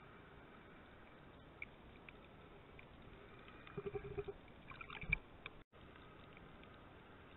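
Underwater ambience picked up by a submerged camera: a faint steady hiss with scattered small clicks and crackles. About four to five seconds in, a few louder knocks and swishes come from the swimmer's arms and fin moving close to the camera, and the sound cuts out for a moment just after.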